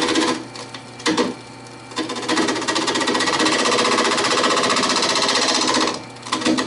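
A turning tool cuts into a spinning epoxy-resin and cassette-tape blank on a wood lathe, making a rapid, loud rattling chatter. The cutting stops for about a second and a half early on and again near the end, leaving only the lathe motor's low hum.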